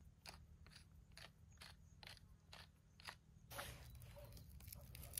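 Wooden pepper mill being twisted, grinding peppercorns in a rhythmic series of about seven short crunching strokes, roughly two a second. About three and a half seconds in, this gives way to a softer rustling with scattered small clicks.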